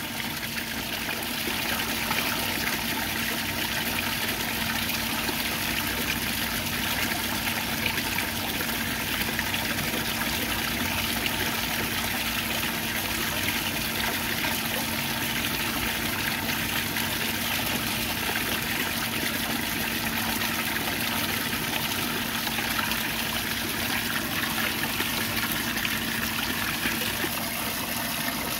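Water and vinegar flush solution running steadily through a Yamaha outboard and pouring back into its tub, circulated by a submersible utility pump, with a steady low hum throughout.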